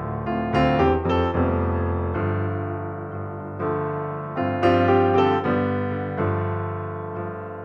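Background piano music: a calm solo piano playing chords and melody notes that ring and fade slowly between strikes.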